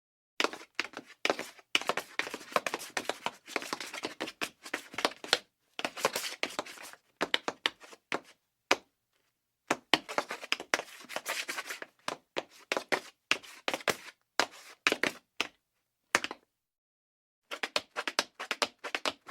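Tap dance steps: rapid runs of sharp metal taps on a hard floor, in several separate phrases broken by moments of dead silence.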